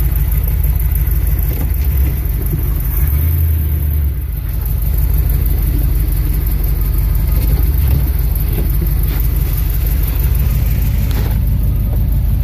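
The engine of a camper van, with its engine cover open in the cab and the air cleaner exposed, running with a steady heavy low rumble. It gets heavier for about a second around three seconds in. A few short knocks or scrapes come near the end.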